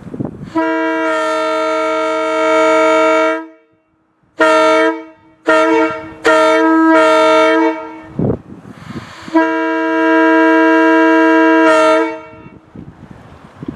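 Two-bell locomotive air horn blown in a series of blasts: one long blast, a brief break, a few short toots, then another long blast. It sounds a steady two-note chord.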